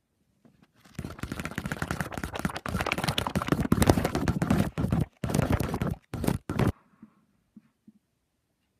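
Paper pages of a colouring book crackling and rustling as they are handled and turned: a dense run of sharp clicks and crackle that starts about a second in, breaks off twice near the end and then stops suddenly.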